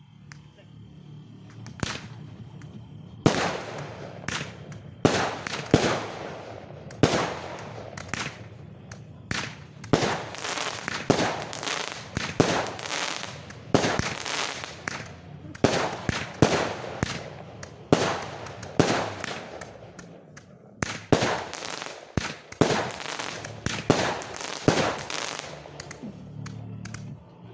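Aerial fireworks shells bursting in quick succession, about one or two sharp bangs a second, each trailing off. They begin a few seconds in, pause briefly about twenty seconds in, and thin out near the end.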